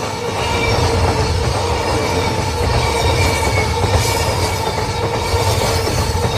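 Freight train hauled by an EF210 electric locomotive passing close by: a heavy low rumble of wheels on rail with clicking over the joints and a thin, wavering wheel squeal. Throughout there is a steady ringing tone, the level-crossing warning bell.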